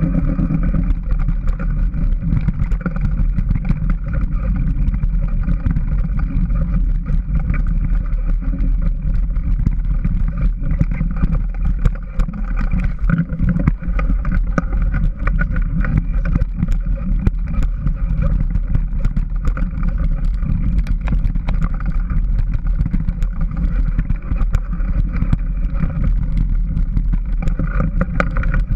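Small trail-motorbike engine running at a steady pitch as the bike rides a bumpy dirt singletrack, with a constant rumble and frequent small knocks and rattles from the bumps.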